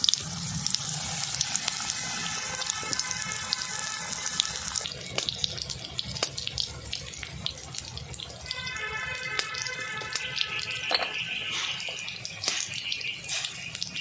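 Prawn fritters deep-frying in hot oil: a steady sizzling hiss with many small crackling pops.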